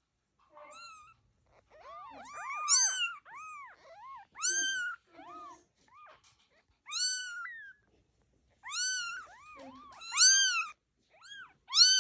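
Kittens meowing: a rapid series of short, high, rising-and-falling cries, several overlapping at once, with the loudest calls in the middle and near the end.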